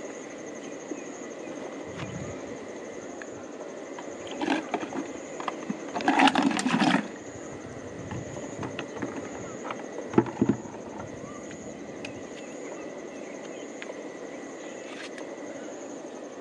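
Freshwater clams tipped out of a plastic bucket onto rock: a clattering rush lasting about a second, about six seconds in, then a few sharp knocks of shell on stone a few seconds later. A steady high pulsing buzz, typical of insects, runs underneath.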